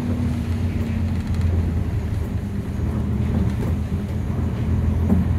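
Nissan Diesel KC-UA460NSN bus heard from inside the cabin, its diesel engine running while under way. A steady low drone with a faint engine tone that shifts a little in pitch.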